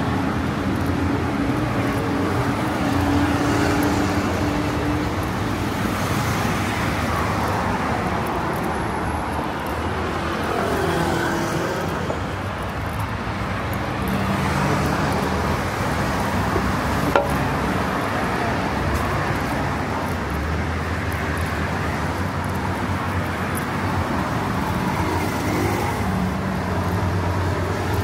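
Steady road traffic: car engines running and passing, with tyre noise. Engine hums rise and fade as vehicles go by. A single sharp click comes about two-thirds of the way through.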